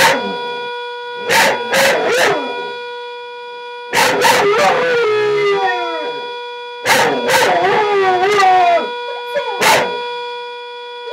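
Border Collie howling along with a whistling stovetop kettle. The kettle's steady whistle runs throughout, while the dog howls in several bouts, the two longest about four and seven seconds in, wavering and sliding down in pitch.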